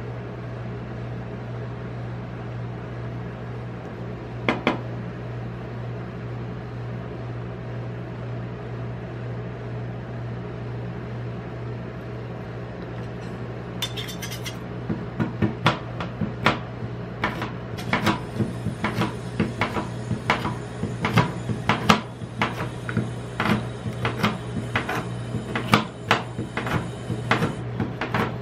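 Steel spatulas chopping a KitKat bar into cream on a rolled-ice-cream cold plate, making rapid, uneven metal clacks against the steel plate from about halfway through. A steady low hum from the cold-plate machine runs underneath.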